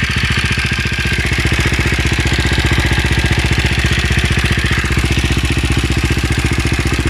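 KTM LC4 single-cylinder four-stroke engine idling steadily with a ticking from the top end. It is the sound of a worn inlet rocker arm roller bearing.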